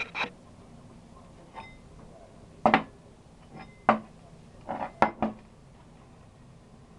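Several sharp clanks and knocks, hard objects set down or struck against one another, with a quick run of three shortly after the middle; no motor is running.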